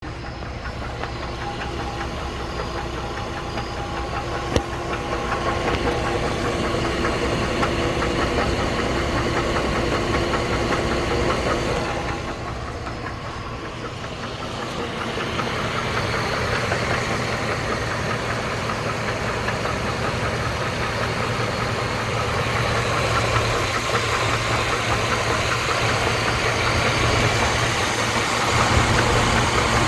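2008 GMC Envoy's engine running with a steady, fast knocking noise, at 220,000 miles, its cause not yet found. The level dips briefly a little before halfway, and there is a single sharp click about four and a half seconds in.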